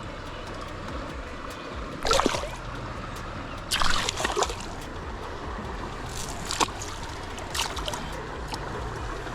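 Creek water running steadily, with short, sharp splashes about two seconds in, around four seconds in, and twice more near six and a half and seven and a half seconds.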